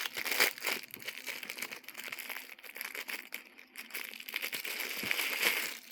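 Packaging crinkling and rustling as a multi-tool is handled and taken out of it, with irregular crackles that are louder about half a second in and again near the end.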